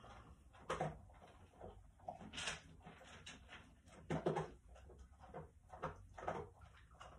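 Quiet, irregular small knocks and rustles from hands handling a small dropper bottle of resin colourant, with a brief hiss about two and a half seconds in.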